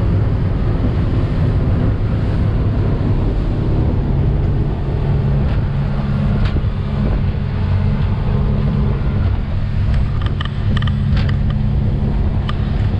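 Outboard motor of a Jeanneau Merry Fisher 795 Sport motor boat running steadily at cruising speed, about 21 knots, with the rush of wind and water from the hull and wake. A few light rattles about ten seconds in.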